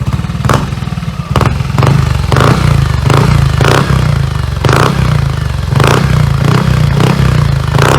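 Yamaha Aerox v2 scooter's 155 cc single-cylinder engine running loud through an MT8 aftermarket exhaust, a steady low note cut by about a dozen short sharp blips, roughly one every half second to second.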